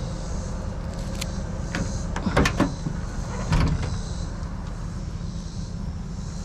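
Pickup truck tailgate being unlatched and lowered: a couple of sharp clicks, then two loud metal clanks a second apart, over a steady low rumble.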